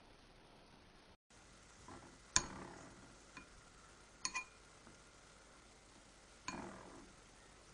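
Wooden chopsticks clinking against a glass bowl while pressing bread into beaten egg: three sharp clinks with a short ring, about a third of the way in, just past halfway (a quick double), and near the end, the first the loudest.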